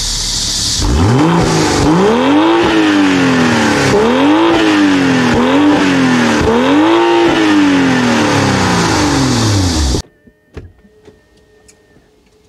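BMW M340i's 3.0-litre straight-six heard at the exhaust tips: idling, then blipped several times with the pitch climbing and falling on each rev before settling back toward idle. Near the end the sound cuts off to a quiet car cabin with a few faint clicks.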